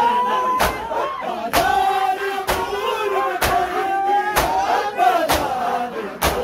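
A crowd of mourners doing matam: many open hands striking bare chests in unison, about once a second, seven strikes in all. Men's voices chant loudly together throughout.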